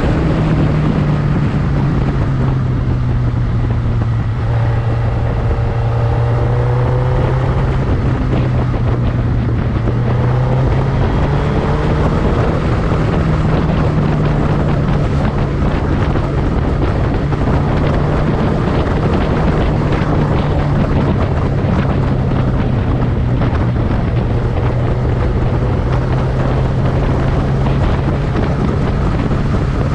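Motorcycle engine running steadily under way, with wind noise on the microphone. The engine pitch rises briefly a few times as it accelerates in the first dozen seconds.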